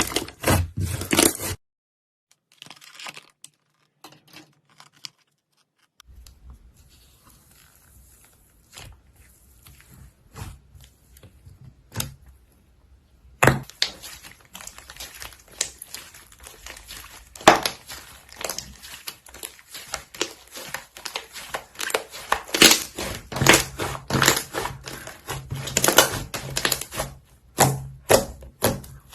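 Clay slime being mixed: dense sticky crackling and popping clicks. It goes nearly silent a couple of seconds in, crackles faintly for a while, and turns loud and dense again from about halfway.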